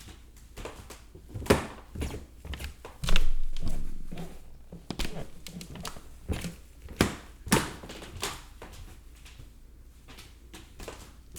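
Footsteps on creaking stairs: irregular thuds and creaks of the treads. The loudest is a drawn-out sound about three seconds in that fades over about a second.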